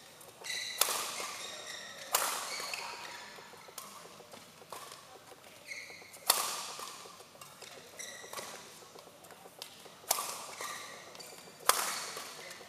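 Badminton rackets striking a shuttlecock in sharp cracks every second or few, with the hardest hits echoing through a large hall. Shoes squeak briefly on the court mat between shots.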